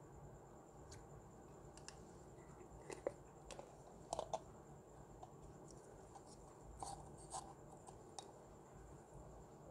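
Faint, scattered clicks and crackles of a thin clear plastic slime container being handled and squeezed to work out clear green slime, with a few louder clicks a few seconds in.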